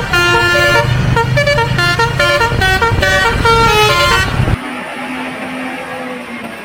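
Bus 'telolet' multi-tone horn playing a quick tune of short notes that change pitch step by step, over the bus's engine. The tune stops about four seconds in, and the engine sound drops away soon after.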